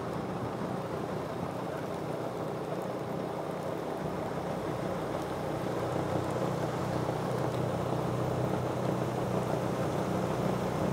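Rotary snow blower at work: a steady engine drone under a dense rushing hiss of snow being thrown from its chute, growing a little louder in the second half.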